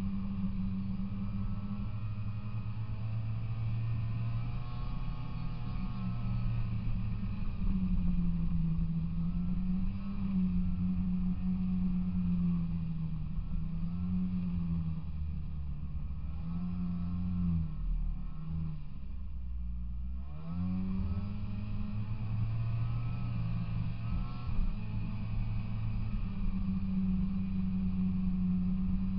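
Polaris Indy 340 snowmobile's two-stroke engine running under way, its pitch rising and falling with the throttle. About nineteen seconds in it drops low, as if backed off almost to idle, then climbs again.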